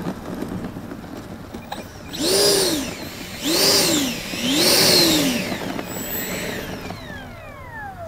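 90mm electric ducted fan of an FMS Super Scorpion RC jet, ticking over at first, then given three short throttle blips: each one a whine that rises and falls in pitch. Near the end the fan winds down with a steadily falling whine.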